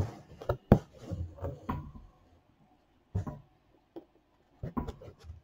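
Soft, scattered scratches and light taps of hand embroidery: a needle and green stranded floss being drawn through cotton fabric stretched in a wooden hoop. A quiet gap falls around the middle, with the taps picking up again near the end.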